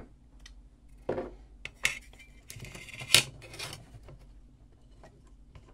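A few light clinks and knocks of small metal parts being handled, separate taps spread over several seconds, with a short scrape just before the loudest click about three seconds in.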